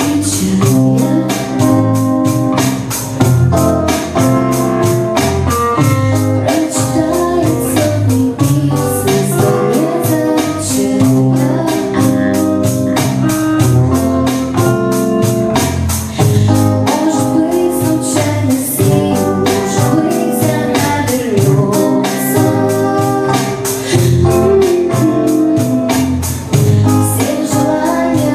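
Live band music: electric guitar and bass guitar over a steady beat, with a woman singing into a microphone for part of it.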